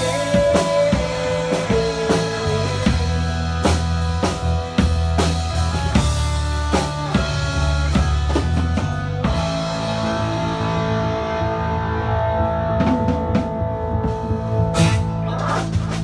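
A country band plays live with drum kit, bass and guitars, while a long held note glides down and fades over the first few seconds. About nine seconds in the steady drumming drops away, leaving a ringing held chord, with a few cymbal hits near the end.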